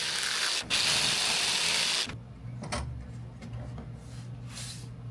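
Power saw cutting the edge of a wall panel for about two seconds, with a brief break, then stopping; a low steady hum and a few light knocks follow.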